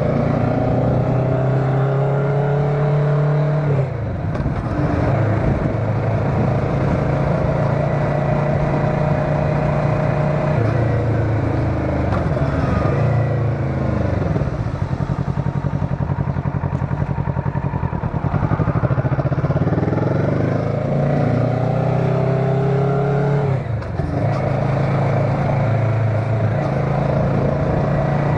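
Motorcycle engine under way, its pitch climbing through the revs and dropping sharply at gear changes about four seconds in and again near the end, with slowing down and speeding up in between.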